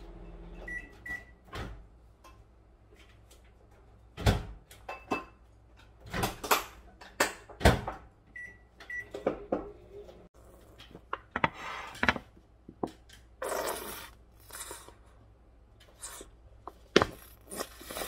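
Kitchen handling noise: plastic food containers and lids clicking and knocking on a table, with a short rustle part-way through. A pair of short high electronic appliance beeps sounds about a second in, and another pair about eight seconds in.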